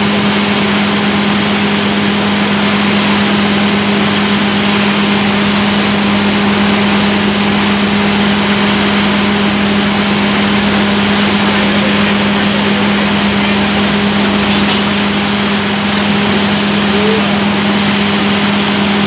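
Borewell drilling rig's engine running steadily with a strong low hum, over a continuous rush and splash of muddy water being blown up out of the borehole.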